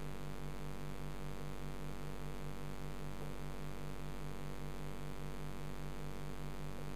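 Steady electrical hum and hiss, the low hum pulsing quickly at about four to five beats a second, picked up by a waterproof camera submerged in the tank.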